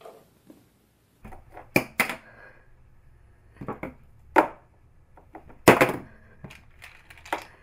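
About five sharp knocks and taps on a hard surface, spread over several seconds, the loudest about two thirds of the way in. They come from a hand setting sheets of paper down on a countertop while a cat paws them off the edge.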